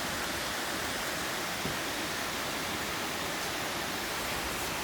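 Steady, even rush of mountain water falling and running over rocks in a valley stream.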